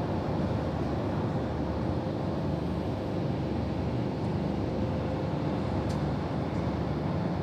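Storm wind blowing in a steady, low rushing noise.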